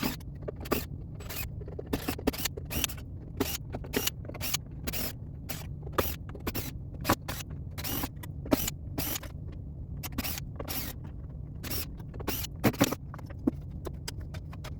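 Pinball score displays being taken off a backbox lamp panel by hand: a string of irregular small clicks, taps and scrapes of plastic and metal parts being worked loose, over a steady low hum.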